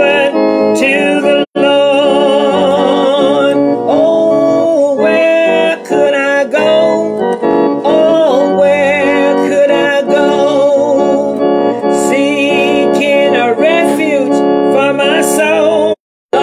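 A woman singing a slow gospel song with a wide vibrato over a keyboard accompaniment. The sound drops out for an instant about a second and a half in, and again just before the end.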